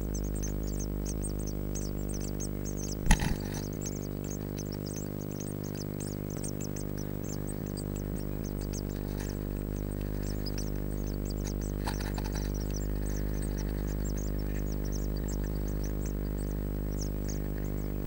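Blue tit nestlings calling in the nest box: thin, high begging peeps, many a second, over a steady low electrical hum. A single sharp knock about three seconds in.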